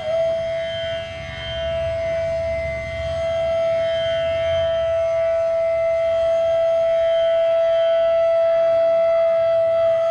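Bansuri, a bamboo transverse flute, holding a single long, steady note in raag Patdeep over a soft steady drone.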